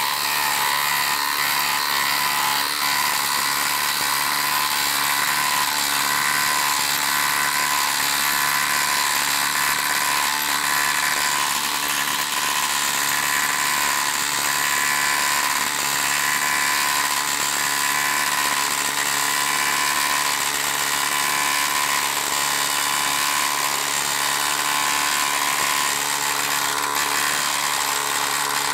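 DeWalt XR quarter-inch hex impact driver hammering loudly and without letup as it drives a large lag bolt into a log through a 24 mm impact socket on an adapter, straining under the heavy load.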